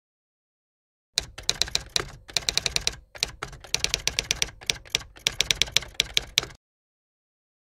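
Typewriter key-strike sound effect: quick runs of sharp clacks with short pauses between them, keeping time with text typing onto the screen. It stops about a second before the end.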